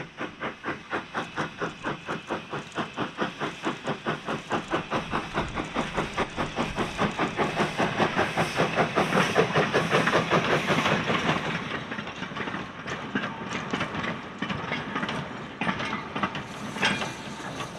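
Barton Wright 0-6-0 saddle tank steam locomotive working a train of wagons, its exhaust chuffing evenly at about four beats a second and growing louder as it draws close. The chuffs then give way to the clicking and knocking of the wagons' wheels over the rail joints as the rake rolls past.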